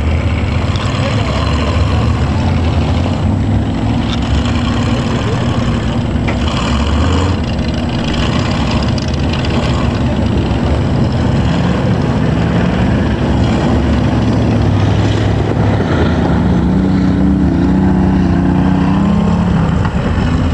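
Off-road vehicle engine running under a steady rushing noise, its note rising and falling as it revs, most clearly near the end.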